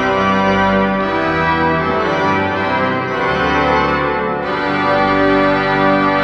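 Pipe organ playing full, sustained chords, moving to a new chord every second or so.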